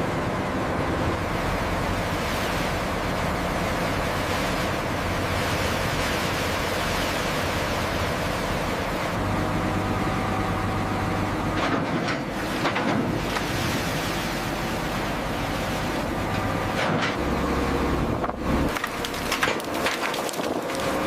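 Steady wind and sea noise with a low mechanical drone, as from a salvage vessel at work, and a few sharp knocks near the end.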